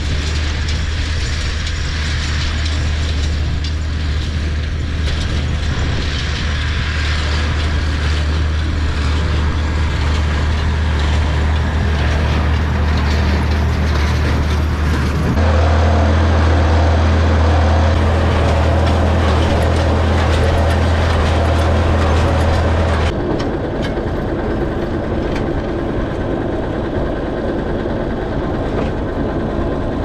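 Tractor engine running steadily under load, with the mechanical clatter of a small square baler working. The mix changes abruptly about halfway through and again about three-quarters through.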